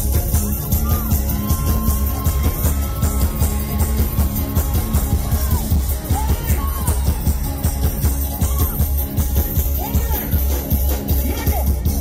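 Live band playing calypso-style carnival music, with a heavy, steady bass beat and a voice singing over it.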